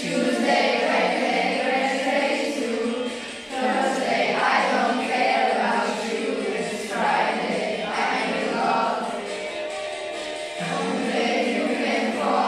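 A group of children singing a song together over a recorded instrumental backing track.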